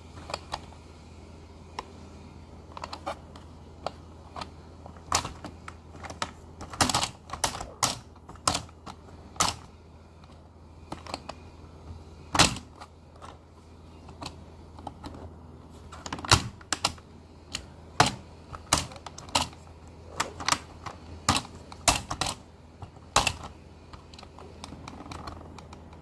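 Plastic toy car-wash playset and toy cars being handled: irregular sharp clicks and clacks, some in quick clusters, over a steady low hum.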